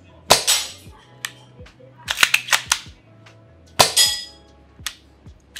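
Amoeba Striker AST-01 bolt-action airsoft sniper rifle being fired and its short-throw bolt worked between shots. Two loud sharp shots, each with a brief metallic ring, come about three and a half seconds apart, with a quick run of bolt clicks and clacks between them.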